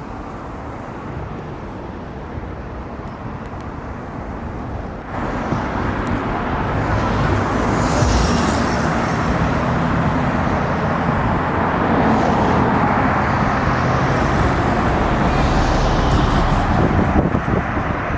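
Road traffic noise from passing cars, a steady rushing that grows louder about five seconds in.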